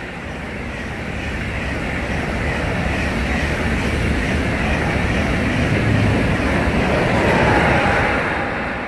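KTX-I high-speed train passing through a station at about 200 km/h: a steady rush of wheel-on-rail and wind noise that grows louder, peaks near the end and then starts to fall away.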